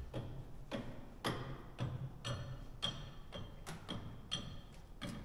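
Garage door torsion spring being wound with a winding bar: a series of sharp metallic clicks and ticks, about two a second, each with a brief ring.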